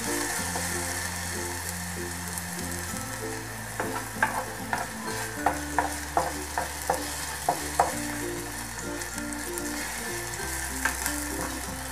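Minced garlic sizzling in hot olive oil in a saucepan while a spatula stirs it. A run of sharp clicks comes between about four and eight seconds in, as the spatula scrapes and knocks against the pan.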